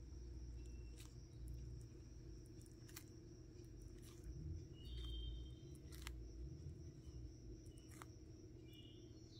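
Faint, sparse single crunches of a Hermann's tortoise biting into a lettuce leaf, a few seconds apart, over a steady low hum and a faint high whine. A couple of short high chirps come about five seconds in and again near the end.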